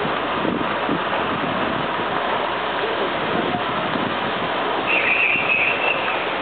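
Fire-scene ambience: a steady noisy rush with indistinct voices, and a brief high-pitched squeal near the end.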